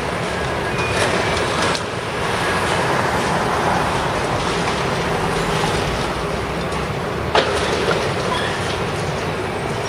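Demolition excavator working on a concrete building: a steady machine rumble with clattering, and a few sharp knocks of breaking concrete and debris. The loudest knock comes about seven and a half seconds in.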